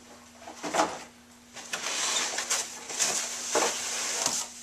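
Plastic wrapping and cardboard packing rustling and crinkling as chair parts are pulled out of a shipping box, with a couple of sharper knocks from the parts and flaps.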